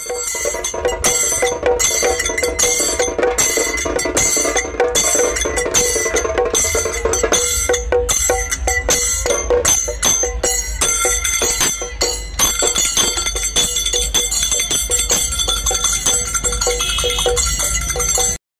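Folk drum band playing a steady beat on large stick-struck frame drums, with bright metallic clashes on every stroke, about two to three strokes a second.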